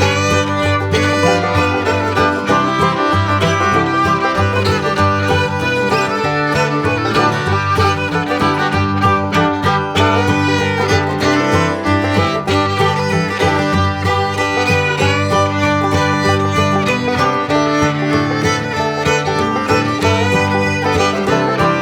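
Background music, a stock track built into the VCUT video-editing app, playing steadily throughout.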